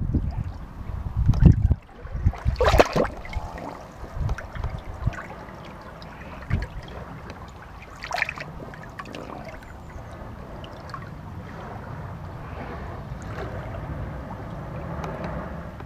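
Seawater surging in and out of a rock crevice at the waterline, with heavy surges and a splash in the first three seconds, then a steadier wash of water trickling over the rock.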